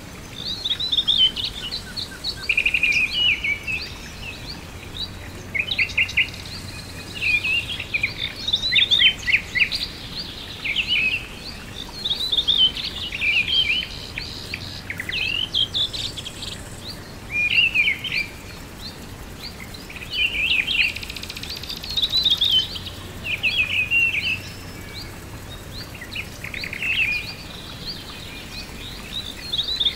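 Songbirds singing outdoors, short chirping phrases repeated every second or two over a faint steady background hiss.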